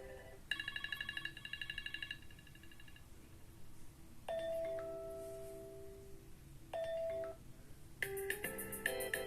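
Successive iPhone ringtones: a quick run of high, rapidly repeating electronic beeps for about two seconds that fades out, then a chime-like tone that rings out and decays about four seconds in, a short repeat of it near seven seconds, and a busier new melody starting near the end.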